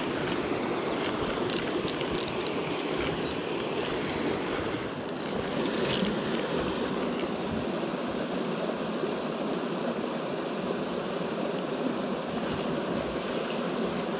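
Steady rushing of a Highland salmon river flowing over rocks, with a few faint ticks.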